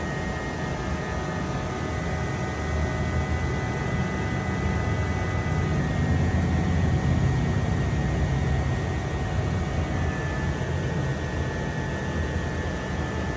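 2021 Mercedes-Benz S-Class air-conditioning compressor buzzing: a steady low rumble with a thin high whine over it, slightly louder for a few seconds in the middle.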